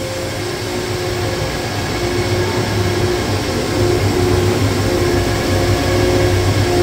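Machinery of a PVC panel extrusion line running: a steady drone with a low hum and a faint tone that comes and goes, growing a little louder after the first couple of seconds.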